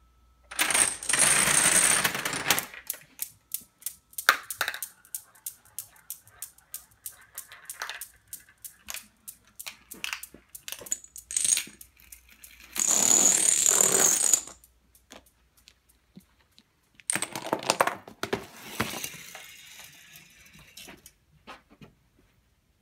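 Dominoes toppling one after another in a chain reaction: a dense clatter, then a long run of separate sharp clicks about three a second, with two more bursts of clatter later on.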